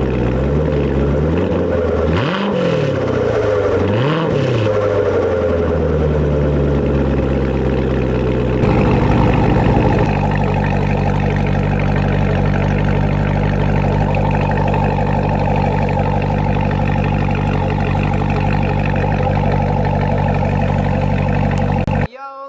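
Chevrolet Corvette Grand Sport's V8 through its performance exhaust, with the electronic exhaust valves held open. It is blipped twice, about two and four seconds in, then idles steadily, with a brief step up in level around nine seconds in.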